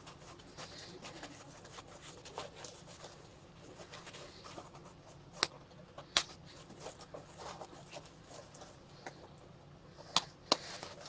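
Nylon fabric and webbing of a camouflage plate carrier and pouch rustling and scraping as the pouch straps are worked through the vest's webbing by hand, with a few sharp clicks, two around the middle and two near the end.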